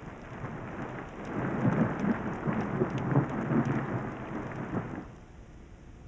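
Rain splashing onto dry, dusty desert ground, with thunder rumbling low beneath it. The sound grows louder about a second in and cuts off abruptly about five seconds in.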